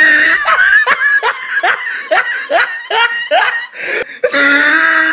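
A person laughing loudly in a run of short 'ha' bursts, about three a second, each falling in pitch, with a held note at the start and again near the end.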